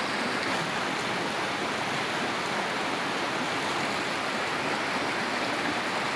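River rapids rushing over rocks: a steady, even rush of fast-flowing water with no breaks.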